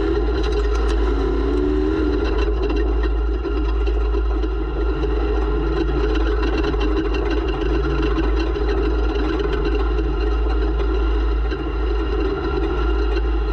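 An off-road race vehicle's engine running steadily, heard from on board with a heavy low rumble. A few sharp ticks come in the first two seconds.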